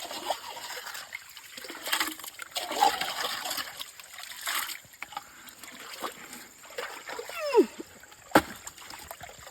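Water splashing and sloshing in uneven bursts as river sand is washed for gold. A short falling tone comes about seven and a half seconds in, and a sharp knock about a second later.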